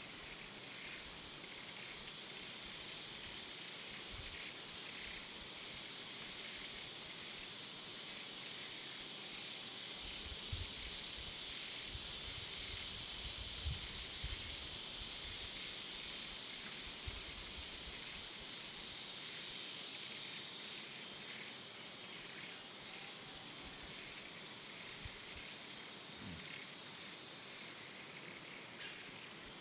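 Jungle afternoon ambience: a steady, high-pitched chorus of insects, with a second, lower insect buzz swelling in the middle. A few soft low thumps come between about ten and fifteen seconds in.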